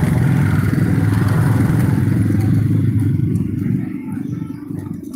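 Motorcycle engine running steadily on the move, fading away over the last second or two.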